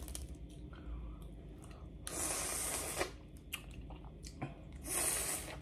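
Boiled crawfish being peeled and eaten close to the microphone: small shell cracks and clicks, with two hissing slurps, one about two seconds in lasting about a second and a shorter one near the end.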